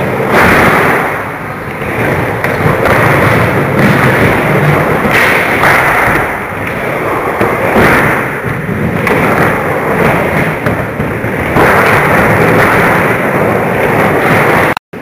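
Skateboard wheels rolling on a half-pipe ramp, a loud rumble that swells and fades every couple of seconds as the rider goes up and down the walls. The sound cuts out abruptly near the end.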